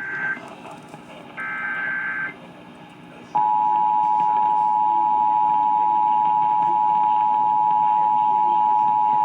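Emergency Alert System Required Monthly Test over AM radio. First comes the tail of one SAME header data burst, then a second full burst of rapid two-pitch digital warbling. About three seconds in, the loud steady two-tone EAS attention signal (853 and 960 Hz) starts and holds.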